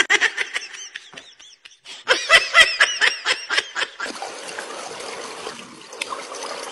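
A person laughing in a quick run of short pulses, then from about four seconds in a steady hiss of water and outdoor background.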